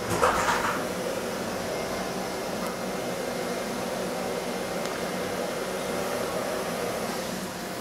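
A vacuum cleaner running steadily, a constant droning hum. A short burst of noise comes just at the start.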